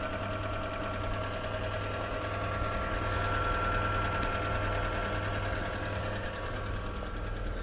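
2004 Kia Rio engine idling with a rapid, even clicking from its hydraulic lash adjusters (lifter tick) on a 223,000 km engine.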